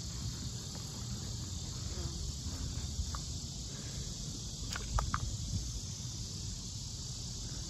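Steady chorus of insects, crickets or similar, as a continuous high-pitched hiss, over a low rumble of wind on the microphone, with a few brief faint chirps or ticks about five seconds in.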